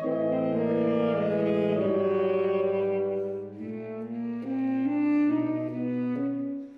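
Saxophone quartet of soprano, alto, tenor and baritone saxophones playing held notes together in a twelve-tone piece, the low baritone note sustained underneath while the upper parts shift step by step. The sound dips softer about halfway, swells again, and falls away at the very end.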